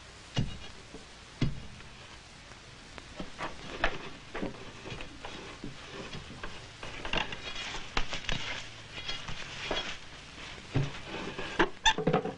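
A digging bar thuds twice into hard, stony ground. Irregular knocks, scrapes and rustling follow as ropes are handled and lashed on wooden poles, with a louder cluster of knocks near the end.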